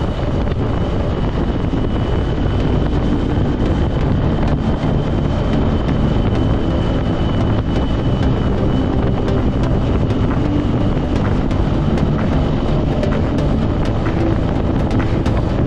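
Road vehicle running steadily at speed, with heavy wind rumble on the microphone. A faint steady whine fades out about two-thirds of the way through.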